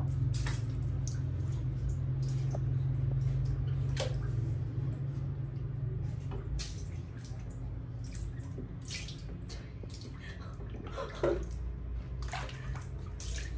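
Water sloshing and splashing in a large plastic basin as a baby monkey swims and paddles in it, with scattered small splashes over a low steady hum.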